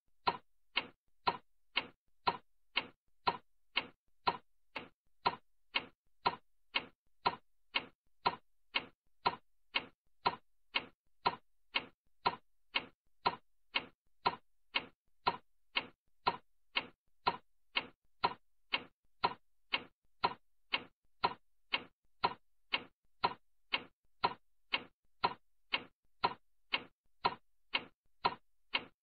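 Clock ticking steadily and evenly, about two ticks a second.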